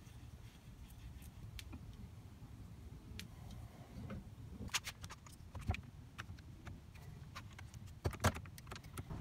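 Scattered small clicks and knocks of wooden stool rungs being fitted into their legs and a bar clamp being set and tightened across them, with a quick cluster of sharp clicks near the end, over a low steady hum.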